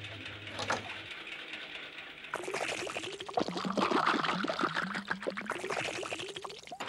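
Cartoon sound effect of liquid gurgling down a coiled pipe and pouring out of a spout into a pot. It starts loudly about a third of the way in and is full of quick bubbling glugs.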